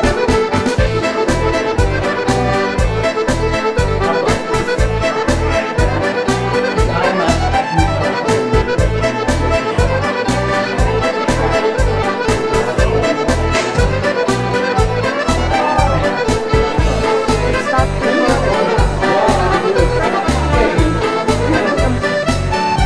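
Instrumental music with a steady quick beat and a held melody line, running unbroken throughout.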